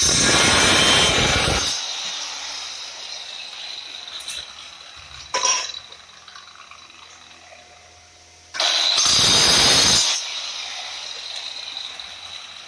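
Handheld electric tile cutter with a diamond blade finishing its cut through a ceramic floor tile, then switched off and spinning down. A short sharp noise comes about five seconds in, and about nine seconds in a second loud burst lasts about a second and a half before fading away.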